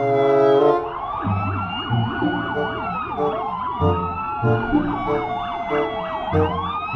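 Several police car sirens sounding together. One is a slow wail that rises and falls; the others are a fast yelp going up and down several times a second.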